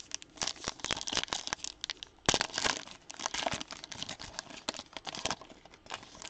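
Foil wrapper of a Donruss basketball trading-card pack crinkling and tearing as it is ripped open by hand, with the sharpest rip about two seconds in.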